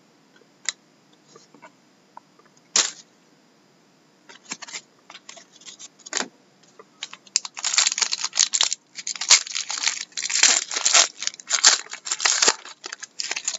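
A few sharp clicks as trading cards are handled, then from about halfway a Panini Rookie Anthology hockey card pack's wrapper being torn open and crinkled, in quick, dense rustles that grow busier toward the end.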